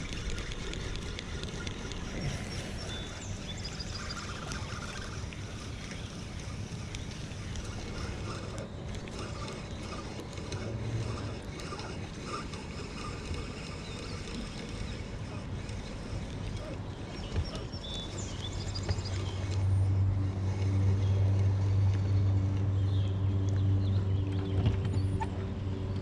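Outdoor lake ambience aboard a small fishing boat, then, starting about two-thirds of the way in, a boat motor running with a steady low hum for several seconds before easing off near the end.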